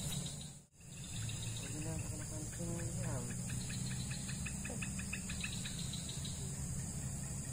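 Insects calling steadily in a high, continuous trill, with a fast run of ticking chirps midway and a low hum underneath. The sound drops out briefly about a second in.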